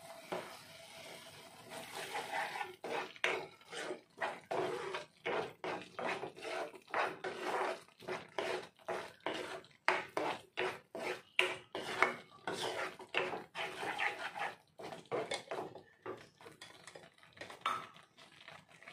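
Wooden spatula stirring thick spiced onion-tomato masala paste in a metal kadai, scraping against the pan in quick repeated strokes, starting about two seconds in.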